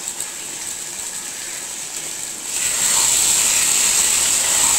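Tomato chicken curry simmering in an open pan, a steady sizzling hiss that gets louder about halfway through.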